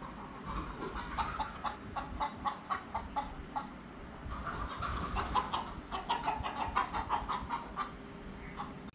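Chickens clucking, many short clucks in quick succession.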